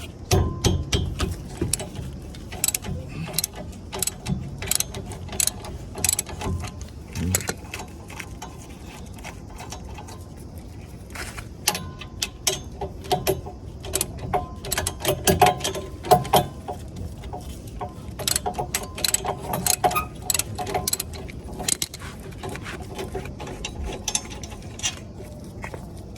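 Socket ratchet clicking in irregular runs as bolts on a car's front disc brake assembly are worked loose, mixed with metal clinks of tools and parts.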